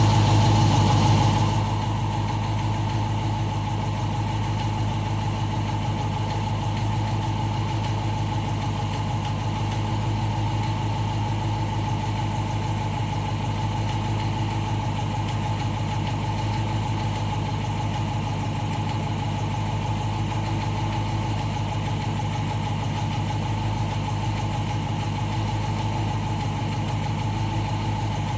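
Dodge Challenger R/T's 5.7-litre HEMI V8 idling while warming up, a little louder for the first second and a half and then steady, with a steady higher tone above the engine note. The owner hears an unexplained noise in it during warm-up.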